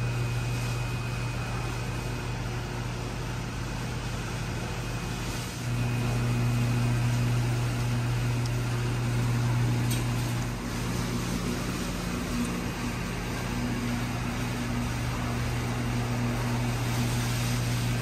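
A steady low mechanical hum, like a running engine or motor, that dips briefly twice: about five and a half and about ten and a half seconds in.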